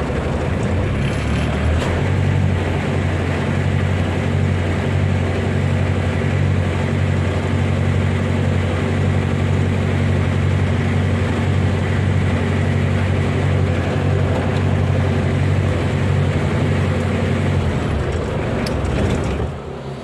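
Toyota 2C four-cylinder diesel engine idling steadily, started through the rewired ignition switch. It picks up slightly about two seconds in, and the sound falls away near the end.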